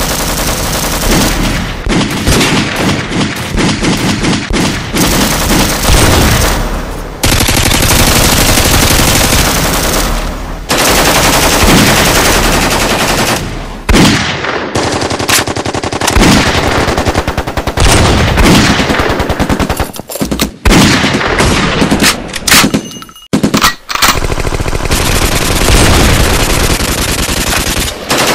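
Sustained rapid machine-gun and gunfire bursts, several weapons overlapping almost without a break, with a few short pauses and single shots around two-thirds of the way through.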